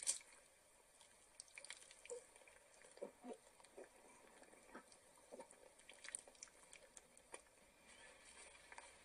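Faint, scattered drips and small ticks at irregular intervals over a low hiss, with one sharper click right at the start.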